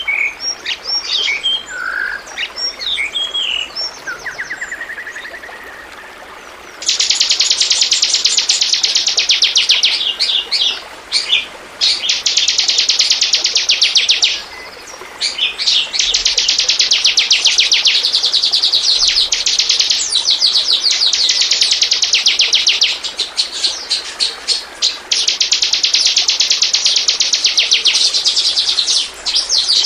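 Bar-winged prinia (ciblek) singing: a few scattered high chirps, then, about seven seconds in, long bouts of very rapid, high-pitched chattering notes that break off briefly and start again several times.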